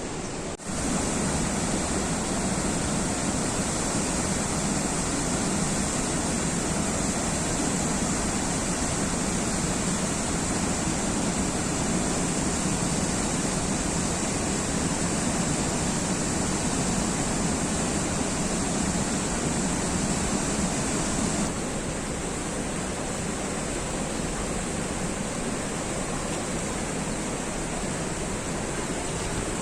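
Steady rush of water pouring down the man-made cascades of the Shushtar historical hydraulic system. It drops a little in level about two-thirds of the way through.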